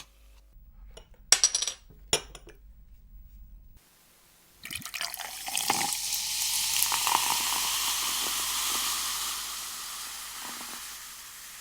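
A few sharp clicks, then a long liquid sound played back by a talking bottle opener, starting about four and a half seconds in and slowly fading. It is the sound of a drink being poured or fizzing.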